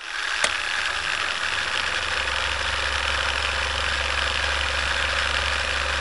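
Film projector running: a steady, fast mechanical rattle with hiss, and a sharp click about half a second in as it starts.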